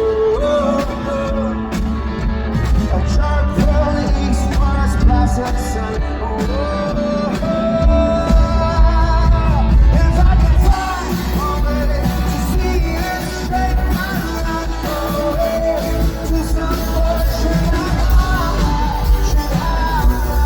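Indie rock band playing live in an arena, with a male lead singer over the full band and a heavy, steady bass.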